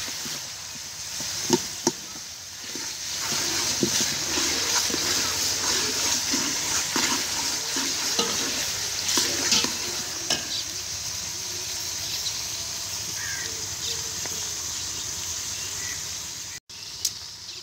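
Chopped onions sizzling as they fry and brown in ghee in an aluminium pot, stirred with a steel ladle that scrapes and clicks against the pot now and then.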